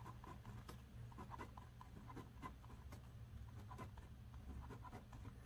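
Faint scratching of a Pilot retractable pen's tip writing words on paper, in short irregular strokes.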